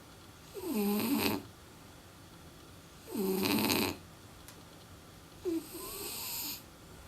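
French bulldog snoring: three rasping snores about two and a half seconds apart, each about a second long, the third one softer.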